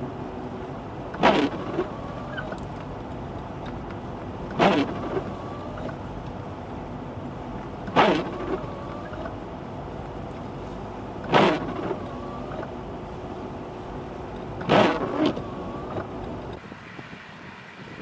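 Steady car running noise heard inside the cabin while driving on a snowy road, with the windshield wipers sweeping across the glass five times, evenly about every three and a half seconds, each sweep a short loud squeaking swipe.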